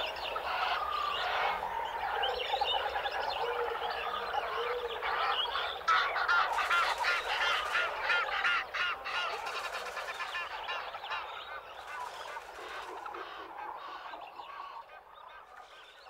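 A flock of birds calling, many short overlapping calls at once, busiest about six seconds in and then fading away.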